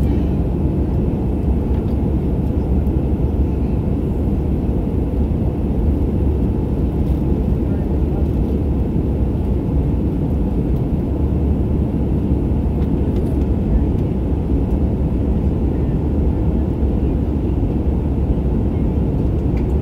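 Steady cabin noise of a jet airliner in its climb after takeoff: engine and airflow noise, heaviest in the deep bass and unchanging throughout.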